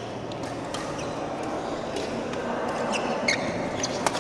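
Badminton doubles rally: sharp racket hits on the shuttlecock and brief squeaks of court shoes on the floor, over a steady murmur of the hall. The sharpest hit comes near the end.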